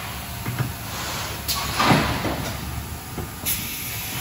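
Thermoforming machine running with a steady hiss, and a loud mechanical clunk with a rush of air about two seconds in.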